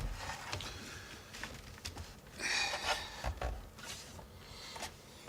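Light handling noises: a few soft knocks and clicks, with a brief scraping rustle about two and a half seconds in.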